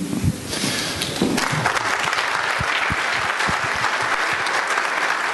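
Audience applauding. The clapping starts about half a second in and swells quickly to a steady level.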